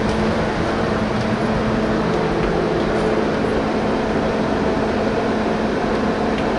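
Retrotec blower door fan running steadily, holding the house depressurized at 50 pascals: a constant rush of air with a steady hum.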